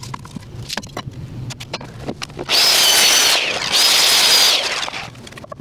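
Handheld circular saw cutting through a 2x6 board in two short passes of about a second each, the motor whining high over the noise of the blade in the wood. Light knocks and clicks of the board and saw being handled come before the cuts.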